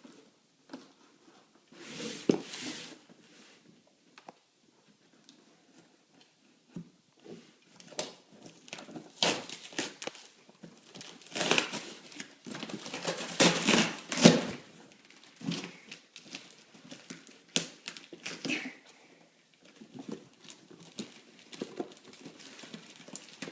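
Packaging being unwrapped by hand: irregular crinkling, rustling and tearing of wrapping, busiest and loudest about halfway through.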